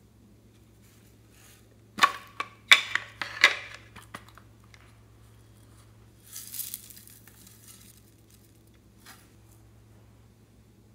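Hard plastic containers clicking and clattering in a quick run of sharp knocks, then a short hiss of sprinkles pouring from a plastic tray into a glass baking dish, and one more light click near the end.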